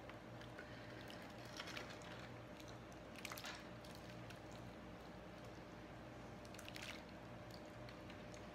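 Thick strawberry gelatin mixture with strawberries poured from a glass measuring pitcher onto angel food cake in a foil pan: faint wet squishing and plopping, with brief louder splats about 2, 3 and 7 seconds in, over a low steady hum.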